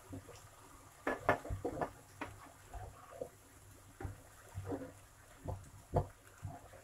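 Slotted spatula scraping and knocking against a nonstick frying pan as chunks of zucchini, mushroom and onion are stirred and tossed. Irregular scrapes and taps, the loudest about a second in and again near six seconds.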